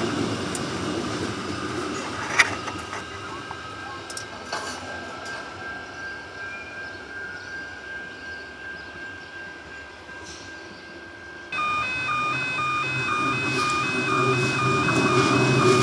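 Adelaide Metro 4000-class electric train running past and fading away, with one sharp clank about two seconds in. Near the end a level crossing's alternating two-tone warning alarm starts suddenly, over the growing rumble of an approaching electric train.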